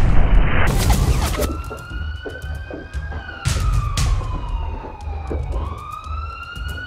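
Loud blast noise dying away over the first second or two, then an emergency siren wailing: its pitch rises, falls slowly over a few seconds and rises again.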